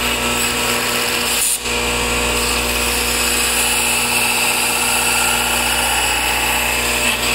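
Bench belt sander with a narrow vertical coarse-grit belt running steadily while a curved piece of wood is pressed against the belt, grinding laser-cut burn marks off its edge. The loudness dips briefly about a second and a half in.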